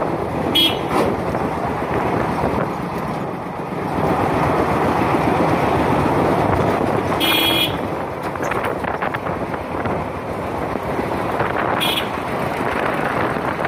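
Wind and road noise of a slow motorcycle ride heard from a chest-mounted phone, with three short vehicle-horn beeps, the longest about halfway through.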